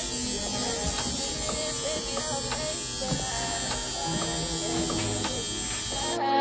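Steady electric buzz of a small handheld motorised device, with faint music underneath; it cuts off suddenly just before the end.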